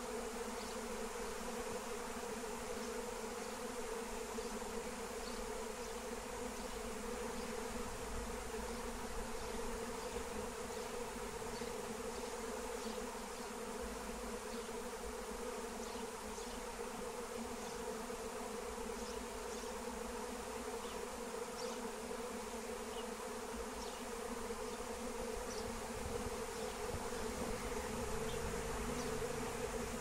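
A honey bee swarm buzzing in a steady, even hum that swells slightly near the end.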